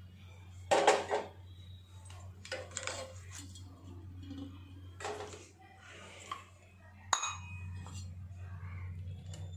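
Kitchenware clatter as a plastic tea strainer is handled and lifted off a steel bowl: about four short knocks and clinks, the loudest about a second in, over a steady low hum.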